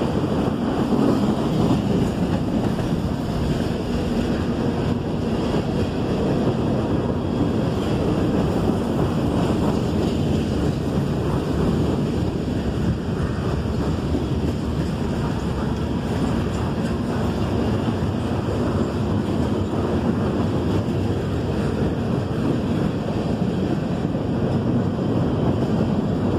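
Freight cars of a CSX mixed freight train rolling past: a steady low rumble of steel wheels on the rails that holds at the same level throughout.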